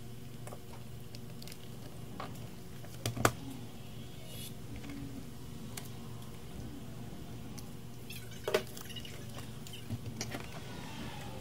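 A steady low hum with a few sharp clicks and taps over it, the loudest about three seconds in and a small cluster near the end.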